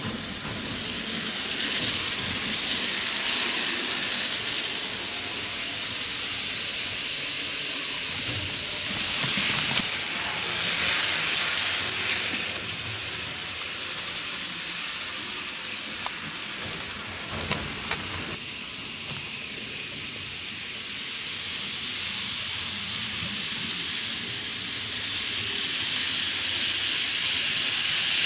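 N gauge model train running on track: a steady hissing rattle of small wheels on the rails and the model's motor, with a few clicks over the track joints and points. It grows louder near the end as the train passes close.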